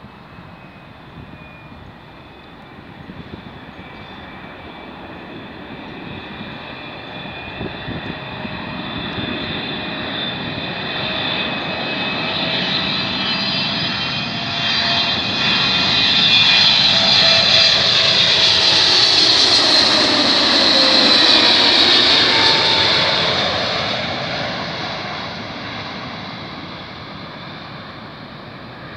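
Boeing 777-300ER's twin GE90 turbofan engines passing low overhead on landing approach: a jet whine and rumble that builds for about fifteen seconds, peaks, then fades as the airliner moves away toward the runway. Its tones fall in pitch as it goes by.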